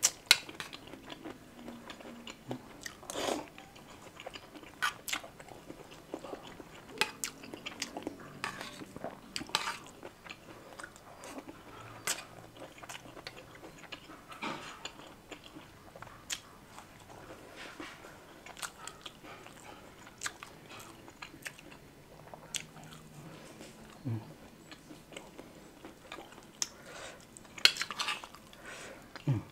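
A person chewing and biting food, with many scattered short, sharp clicks.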